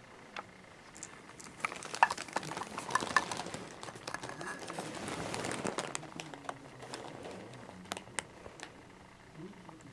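Rustling and crinkling with scattered sharp clicks, busiest in the first half.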